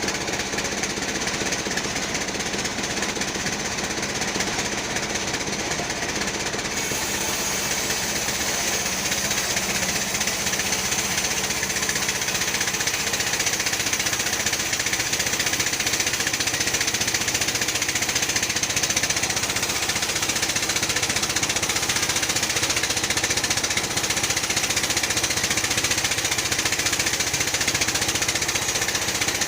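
Type 36 bandsaw mill running steadily as it saws a teak log, a dense mechanical clatter with a hiss. About seven seconds in, the high hiss grows brighter and the sound gets slightly louder.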